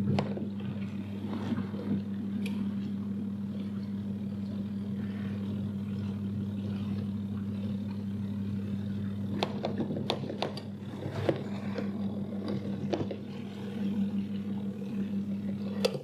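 Small portable caravan washing machine on its spin cycle: the spin basket's electric motor hums steadily. A few short knocks and rattles come about ten seconds in as the lightweight machine shakes while it spins, so it has to be held down by hand.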